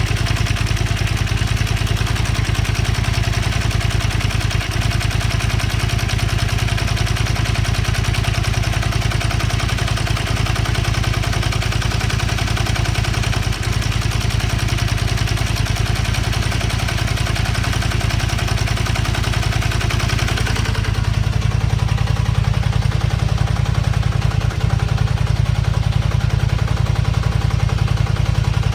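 Honda Xelvis 250's V-twin engine idling steadily with a mechanical rattling noise over it, which the owner suspects is the cam chain rubbing because the cam chain tensioner is not taking up the slack. About 21 seconds in the higher-pitched part of the noise drops away sharply, leaving the low idle running.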